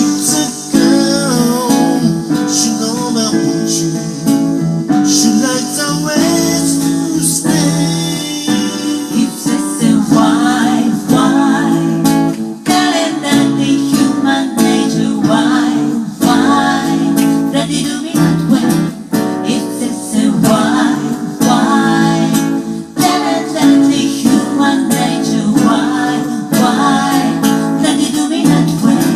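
Music: a strummed acoustic guitar with a singing voice over it, steady and continuous.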